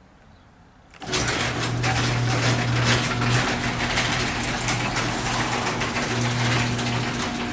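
Chamberlain LiftMaster garage door opener starting up about a second in and then running steadily: a constant motor hum under a dense mechanical rattle as it drives the door.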